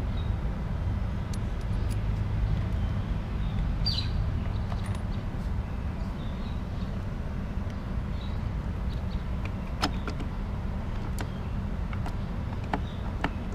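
A steady low rumble in the background, with scattered light metallic clicks and clinks as parts are handled on a split motorcycle engine crankcase, the clearest about ten seconds in.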